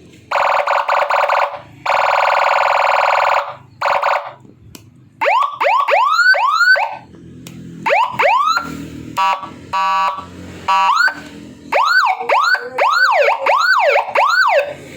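12-tone double-tone electronic vehicle siren sounding through horn loudspeakers, stepping through its tones. It gives short and long buzzing horn blasts, then quick rising yelp sweeps, a fast pulsing tone, and repeated falling-and-rising warble sweeps near the end.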